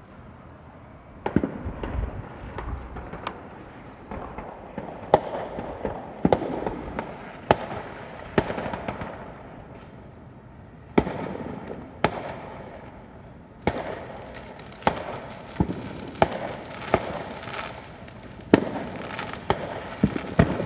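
Fireworks exploding: a long series of sharp bangs, each trailing off in a crackle. They start about a second in and come roughly once a second, with a short lull about halfway through.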